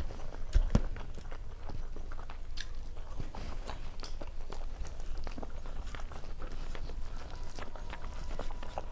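Close-miked chewing and wet mouth smacks of a person eating Indian rice and vegetable dishes with her hand, with soft squishing and clicks of fingers mixing food on a steel plate. The small irregular clicks run throughout, the loudest a little under a second in.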